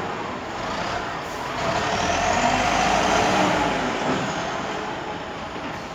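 A heavy vehicle's engine going past, growing louder toward the middle and then fading away.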